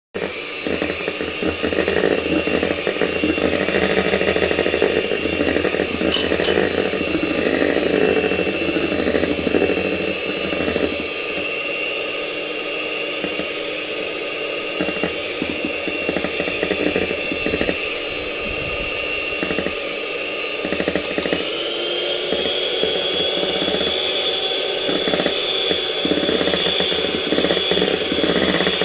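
Electric hand mixer running at medium speed, its twin wire beaters whisking egg whites into foam for meringue in a metal bowl. The motor's pitch rises slightly about two-thirds of the way through.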